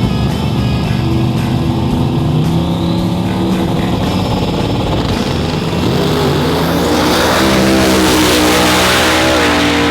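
Drag car's turbocharged big-block V8 running hard. It builds from about six seconds in and is loudest near the end.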